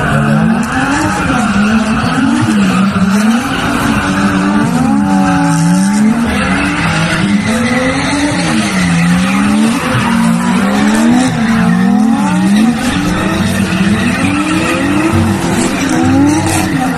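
Nissan Silvia S15 drifting in tight circles. The engine revs rise and fall repeatedly, about once a second, as the throttle is worked, over a steady hiss and squeal of the rear tyres sliding.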